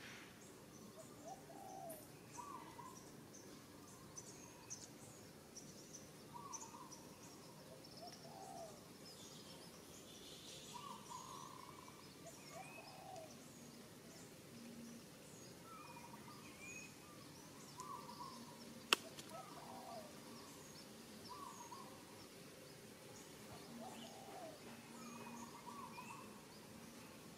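Faint outdoor birdsong: one bird repeats a short gliding call every second or two, alternating between a higher and a lower note, while small birds chirp thinly in the background. A single sharp click comes about two-thirds of the way through.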